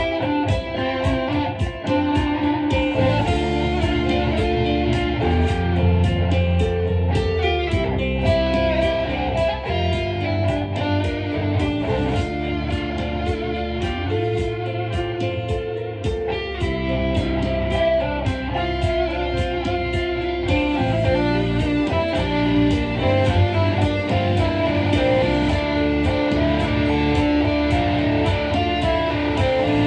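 Instrumental guitar music: a guitar, most likely electric, playing a melody of plucked notes over steady low bass notes, with no singing.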